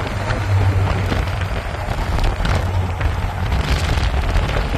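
Cars driving side by side at road speed, heard from inside a moving car: a steady low engine and tyre rumble with wind noise over it.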